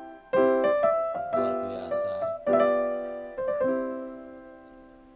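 Background piano music: a few chords struck roughly a second apart, each dying away, the last one fading out near the end.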